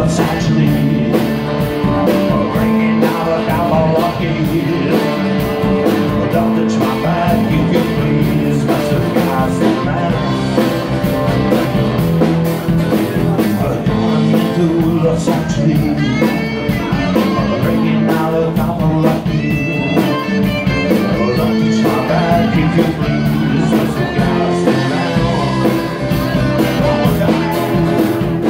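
Live rock music: an electric guitar and an acoustic guitar playing together with male singing over a steady beat.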